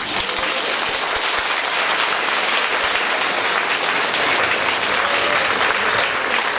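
Audience applauding steadily after a dance performance. The applause cuts off suddenly at the end.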